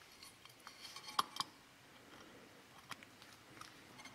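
Faint small metallic clicks from snap ring pliers and a circlip being worked onto the water pump's impeller shaft: two close together a little after a second in, another near three seconds.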